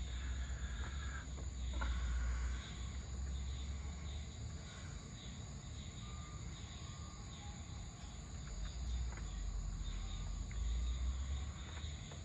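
Evening ambience of insects chirping steadily, with high even pulsing. A low rumble swells at the start, fades, and swells again for a few seconds near the end.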